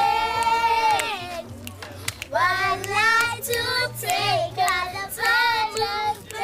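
Children singing a song, starting on a long held note and going on in short phrases with brief breaks between them.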